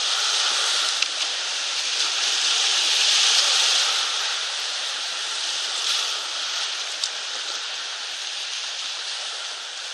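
Whitewater rapids rushing and splashing around an inflatable raft: a dense, steady rush that swells about three seconds in and eases a little toward the end.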